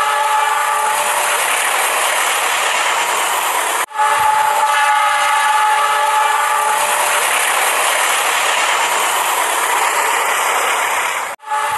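Battery-powered toy train running on plastic track: the model locomotive's motor and wheels make a continuous whirring rattle. Each stretch opens with a horn-like tone that fades into the rattle. The sound breaks off sharply twice and starts over.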